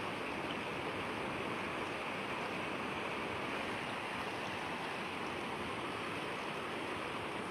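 Steady rushing of a swollen river in flood, fast brown water churning past the bank.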